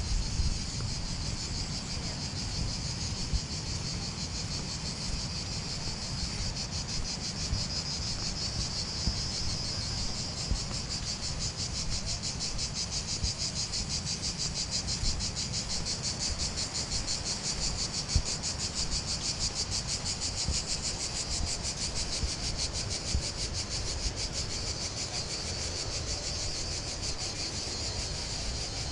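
A steady, high-pitched insect chorus trilling continuously in pine woodland, over a low rumble.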